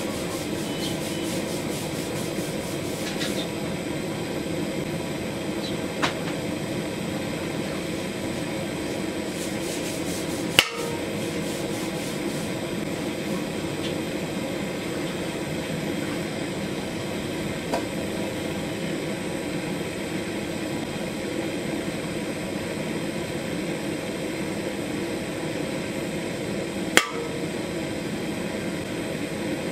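Butane canister torch burning with a steady rushing hiss. A few sharp metallic clicks come through it, the loudest about ten seconds in and another near the end, as the sealed aluminium soda can's lid flexes and bulges under the heat and rising pressure.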